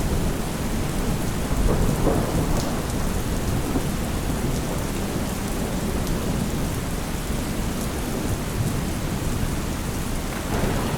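Thunderstorm: steady heavy rain on surfaces with low, rolling thunder rumble underneath, swelling about two seconds in and again near the end.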